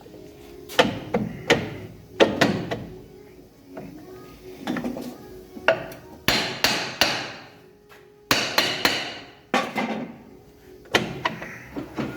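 Hammer blows on metal brake parts: about a dozen sharp strikes in irregular clusters, each ringing briefly, as the drum brake assembly is knocked back into place.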